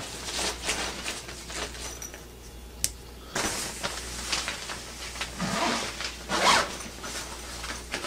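Zipper on the fabric cover of a Panda portable clothes dryer being pulled closed in several rasping strokes, with one sharp click about three seconds in.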